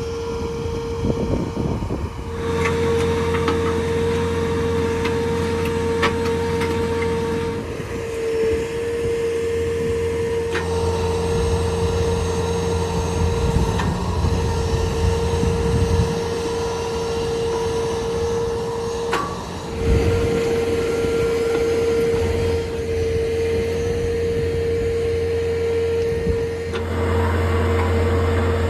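Skid steer engine running hard to drive a hydraulic auger attachment drilling into soil, with a steady high whine over a low engine hum. The sound shifts abruptly several times.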